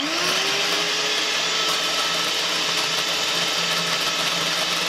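Electric hand mixer starting up, its motor whine rising, then running steadily at speed as its twin beaters whip instant coffee, sugar and hot water into a creamy foam in a glass bowl.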